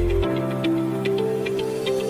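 Background electronic music: a melody of held synth notes with light ticking percussion, its deep bass beat dropping out a moment in.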